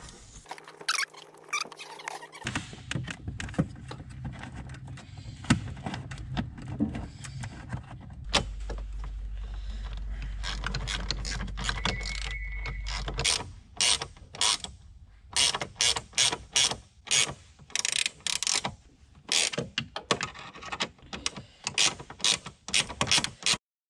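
Ratchet wrench clicking in short strokes, about one to two a second through the second half, as a bolt on the switch bracket is run in. Before that come handling rattles and a low steady hum.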